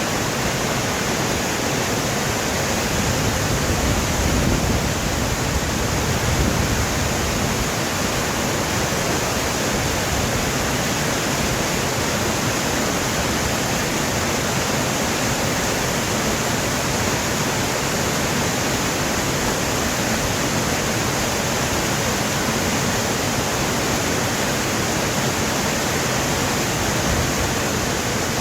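Mountain valley stream rushing steadily, a loud, even wash of water noise, with a low rumble swelling briefly about four to seven seconds in.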